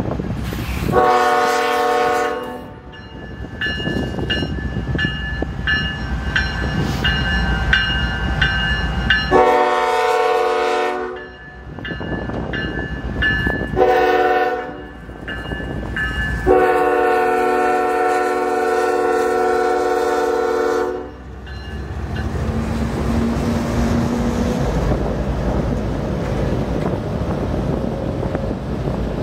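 Iowa Interstate GE ES44AC diesel locomotives sounding a multi-note air horn in the grade-crossing pattern: long, long, short, long, with a bell ringing between the first blasts. After the last blast the locomotives' diesel engines pass and the train's covered hopper cars rumble by on the rails.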